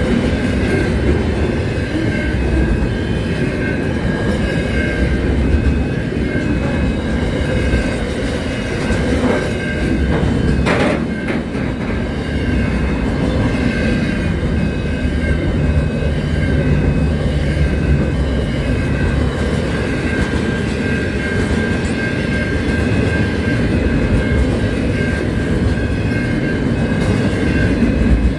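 Container wagons of a long freight train rolling past close by: a continuous rumble of wheels on rail with clickety-clack. A steady high tone runs over it, and there is one sharp clank about eleven seconds in.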